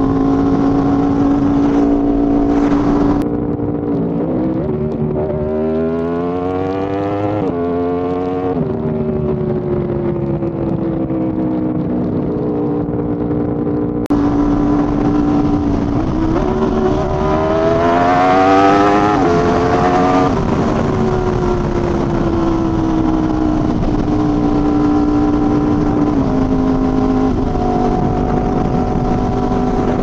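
Motorcycle with an SC Project exhaust running under way, recorded close to the exhaust. The engine holds a steady note, then revs up about 4 seconds in, its pitch climbing before dropping sharply and sliding down. A second climb past the middle peaks and falls away before it settles back to a steady cruise.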